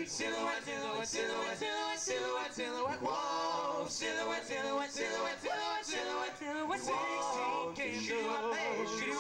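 Male a cappella quartet singing doo-wop in close harmony into microphones, voices only with no instruments.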